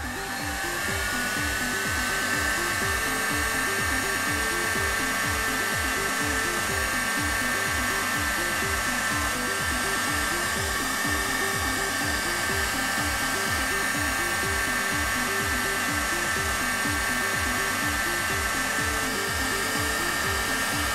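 Electric heat gun blowing hot air with a steady whine, rising briefly as it comes up to speed at the start, while it shrinks a solder-seal connector and melts its solder ring. Background music with a steady beat plays under it.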